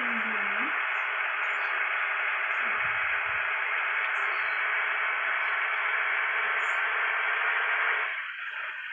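Steady hiss of radio static, as from a radio tuned between stations, cutting off near the end.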